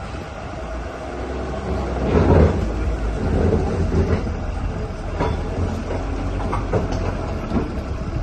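Heavy machinery running: a steady deep rumble, swelling louder about two seconds in, with scattered sharp knocks in the second half.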